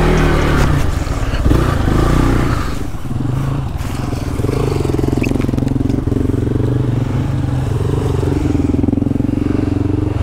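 Off-road motorcycle engine running and revving up and down, labouring through slippery mud.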